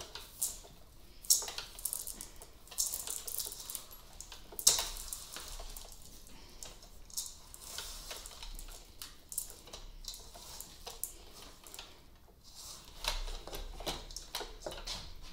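Thick chocolate chip cookie dough stirred by hand with a spatula in a stainless steel mixing bowl: irregular squishing and scraping, with sharp knocks of the spatula against the bowl, the loudest about a second and nearly five seconds in.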